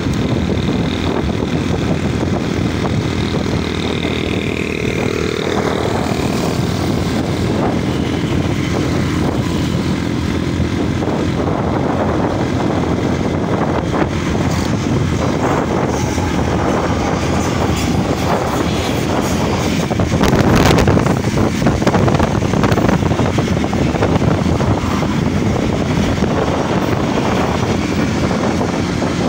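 Hazara Express passenger train running along the track: a steady rumble with a continuous clatter of wheels on rails, briefly louder about two-thirds of the way through.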